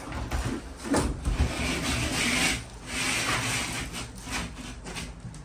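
Two long scraping strokes against drywall, each about a second and a half, after a few low knocks.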